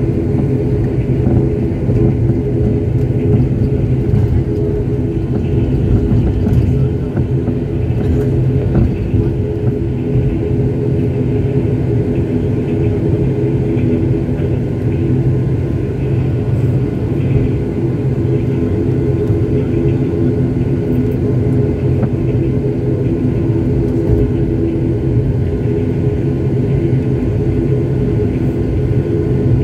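Turboprop airliner's engine and propeller running, heard from inside the cabin beside it as the aircraft taxis: a loud, steady drone with several held humming tones.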